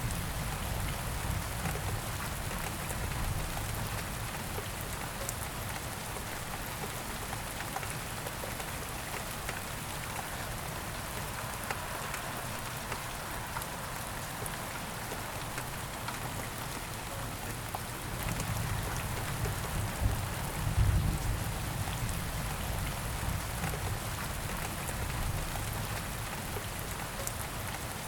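Steady rain falling and pattering on a surface. A low rumble swells up about two-thirds of the way through and fades again.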